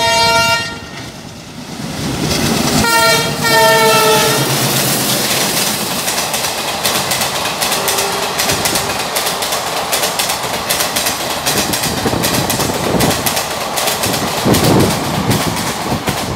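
Diesel locomotive horn sounding twice, a brief blast and then a longer one about three seconds in that sinks slightly in pitch as it passes, followed by an express train's coaches rushing past at high speed with a rapid clatter of wheels over rail joints.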